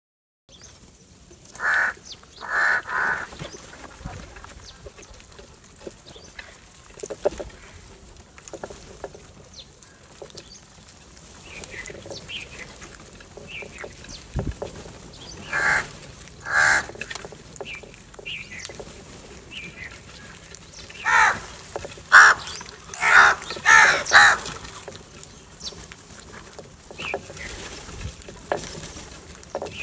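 House crows cawing harshly in scattered calls: three near the start, a pair in the middle, and a quick run of about five near the end, with a few softer calls between.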